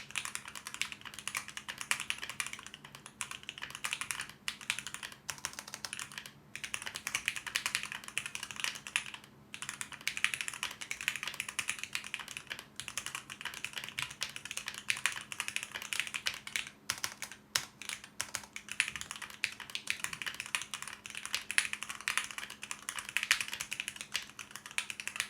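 Steady, fast typing on a custom 65% mechanical keyboard, the Maker Keyboards Phantom, with lubed L&F Lavender switches under ePBT keycaps on an o-ring gasket-mounted FR4 plate: a consistent clack. The typing runs in bursts with a few brief pauses.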